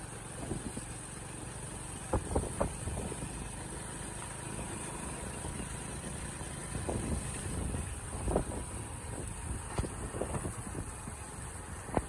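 Hero Splendor single-cylinder four-stroke motorcycle engine running steadily under way, a low rumble, with a few short sharp knocks, around two seconds in, about eight seconds in and near the end.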